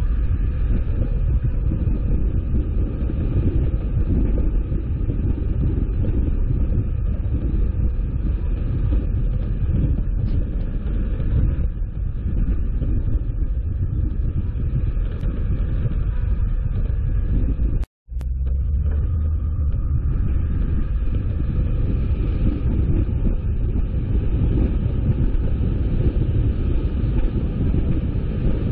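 Steady low rumble of a car driving along a road: road and engine noise with no change in pace. It cuts out completely for a moment about two-thirds of the way through.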